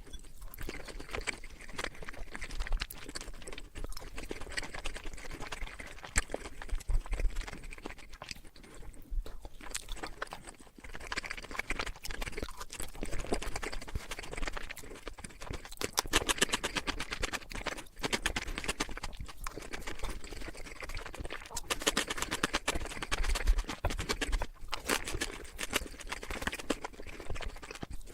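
Close-miked chewing of crunchy Korean fried chicken: dense crackling crunches in bouts, with brief pauses between bites.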